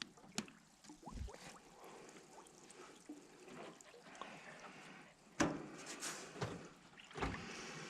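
Water trickling and splashing around a moving paddle boat, with several hard knocks on the boat, the loudest about five and a half seconds in.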